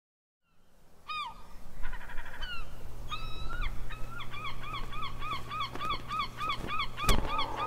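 Gulls calling: a few sharp down-slurred cries, then a fast run of repeated calls at about three a second, over a low steady hum, with a single sharp click near the end.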